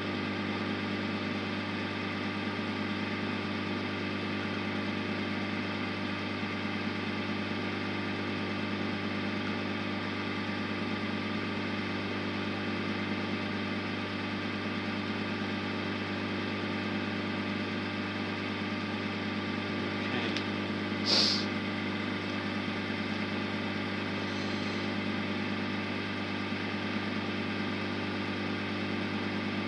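Wood lathe running steadily, its motor giving an even hum. There is one short sharp click about two-thirds of the way through.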